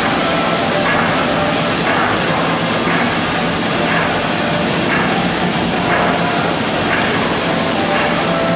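Printing machinery in an offset pressroom running steadily. It has a constant low hum and a faint, even pulse about once a second.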